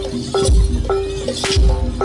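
Campursari-style jaranan music played live through a PA system. A deep bass beat falls about once a second, with sharp drum strokes between and a held keyboard-like tone under it.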